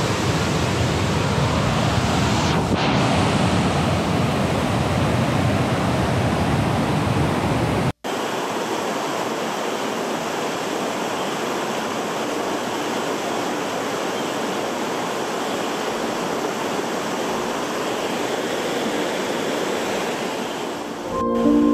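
Steady rushing of a fast-flowing river over stones. An edit about eight seconds in drops it to silence for an instant, and the rushing then resumes with less low rumble.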